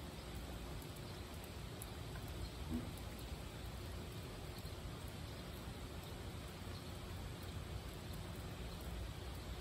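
Rain falling: a steady, faint hiss with scattered soft drop ticks, and one brief low sound about three seconds in.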